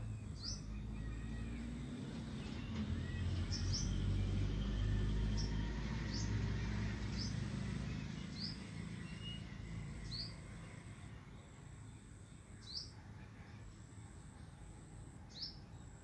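Small bird chirping, about nine short high chirps spaced irregularly a second or more apart, over a low rumble that swells in the middle and then eases.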